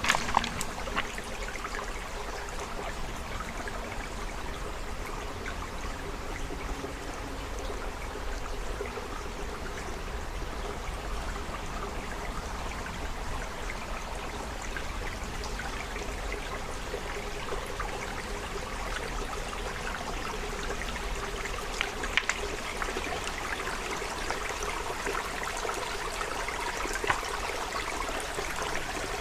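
Creek water flowing and trickling in a steady, even rush, with a few short sharp clicks over it.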